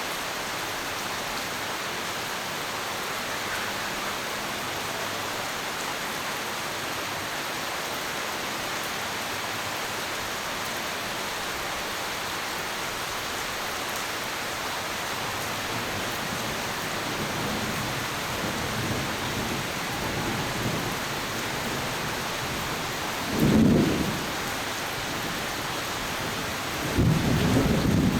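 Steady heavy rain falling, with thunder rumbling low in the last third. A loud thunderclap comes about 23 seconds in, and another loud roll of thunder breaks just before the end.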